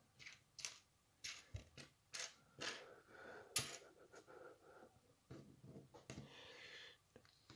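Faint clicking and clattering of loose Lego pieces being picked through on a wooden tabletop, with a sharper click about three and a half seconds in and a short rustle near the end.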